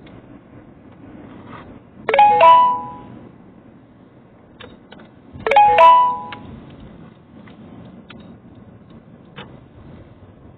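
A two-note electronic ding-dong chime sounds twice, about three and a half seconds apart, each note ringing briefly before dying away, over faint road noise inside a car cabin.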